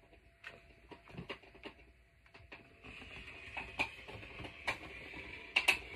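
English pointer chewing on a chew: irregular clicks and crunches, denser and louder in the second half.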